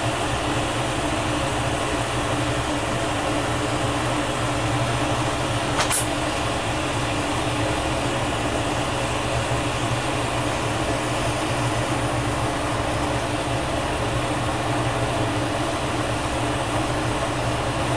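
Steady rushing of a glassworking torch flame as glass tubing is heated in it, with a low hum underneath. A single brief click about six seconds in.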